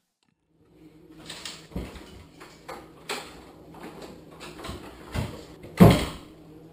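A few sharp knocks and clatters over a steady low hum, the loudest thump coming near the end.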